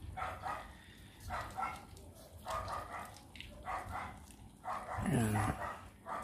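A dog barking over and over, about once every second or so, with one louder, deeper bark near the end.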